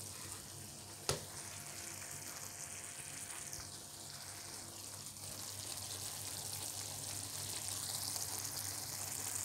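Bangus (milkfish) steaks in soy-lemon sauce sizzling steadily in a frying pan on a gas stove. A single sharp click sounds about a second in.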